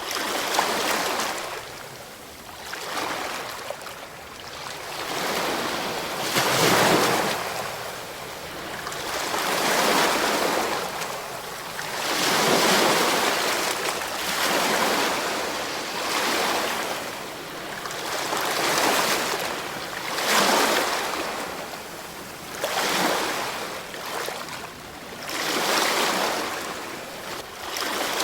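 Ocean waves breaking and washing on a shore. The surf swells and falls back about a dozen times, every two to three seconds.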